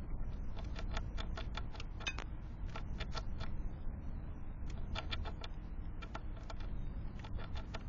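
Birds pecking and scrabbling on a window feeder: irregular quick runs of light clicks and taps, over a steady low rumble.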